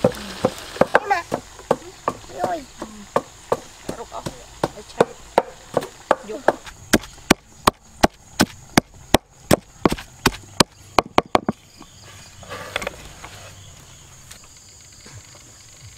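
A knife chopping on a wooden cutting board: sharp, regular strokes at about two a second that quicken to three or four a second, then stop about three quarters of the way through.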